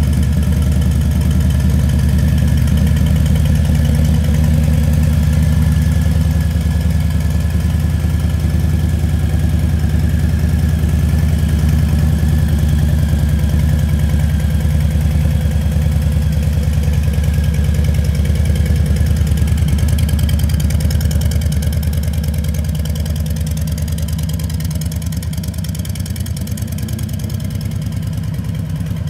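2020 Harley-Davidson Low Rider S's Milwaukee-Eight 114 V-twin idling steadily through a Vance & Hines aftermarket exhaust, a little quieter over the last several seconds.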